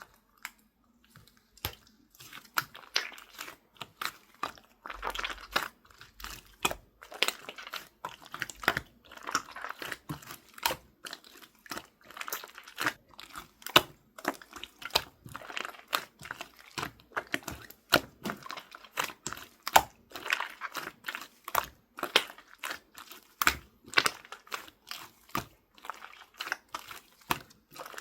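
Clear slime being squished and pressed by hand, giving an irregular stream of sharp wet pops and clicks, several a second.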